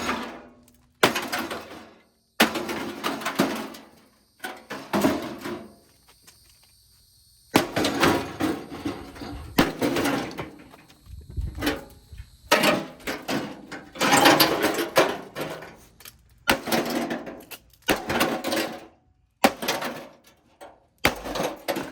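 A gutted Hamilton Beach microwave being smashed apart: repeated heavy blows on its metal casing and parts, each followed by clattering and rattling debris. The noise comes in short bursts of one to two seconds that start and stop abruptly.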